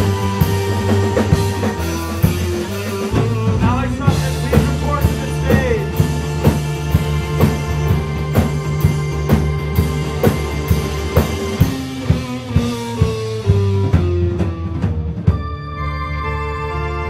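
Live rock band playing an instrumental passage: electric guitars, bass and keyboard over a drum kit beating about twice a second. The drums thin out near the end, leaving held guitar, bass and keyboard notes.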